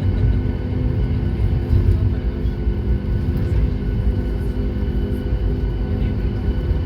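Steady, loud low engine rumble with a constant droning hum and no change in pitch.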